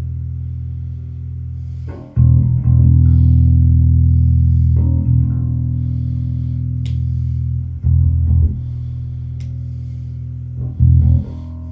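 ESP F-series electric bass played plugged in: low notes plucked every few seconds, a fresh note about two seconds in, again near eight seconds and near the end, each left to ring out and slowly fade.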